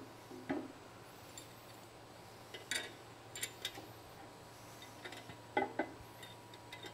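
Light metallic clinks and knocks of steel hardware and parts being handled as a gear motor is fitted back onto a car-wash side-brush arm: one about half a second in, a quick cluster around three seconds, and a couple more near the end.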